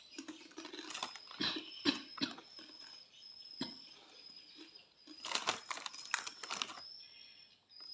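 Irregular crunching and crinkling as a crunchy spicy macaroni snack is eaten and its plastic packet handled.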